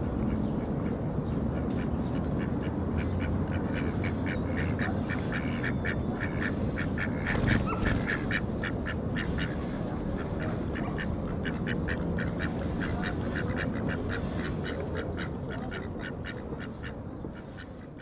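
Duck quacking in a long run of short calls, about three a second, over a steady low background rumble. There is a single knock about seven and a half seconds in, and the sound fades out near the end.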